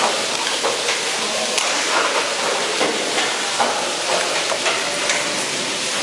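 Steady wet hiss of a squid processing line, with frequent short slaps and knocks as the wet squid are handled on a stainless steel table.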